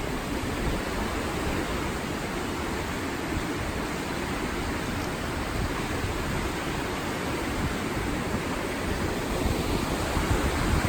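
Steady rush of the Barnafoss waterfall, an even wash of water noise with no breaks.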